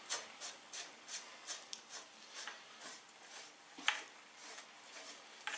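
Threaded one-inch headset being screwed down the fork's steerer threads by hand. It makes a soft, rhythmic scraping of about three light strokes a second, with a sharper click about four seconds in and another near the end.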